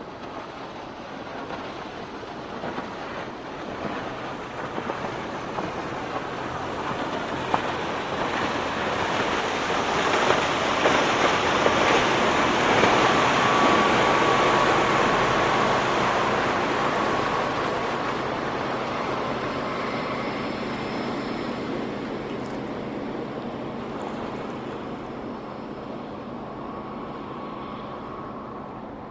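Motorboat with a 325 HP inboard engine passing at medium speed: engine noise and water wash build to a peak about halfway through, then slowly fade away.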